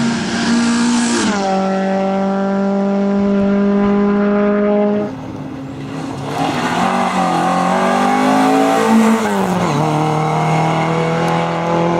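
Rally car engines running hard past the stage: an engine note drops in pitch about a second in as a car goes by, then another car comes through with a rising, wavering engine and a second pitch drop near the end.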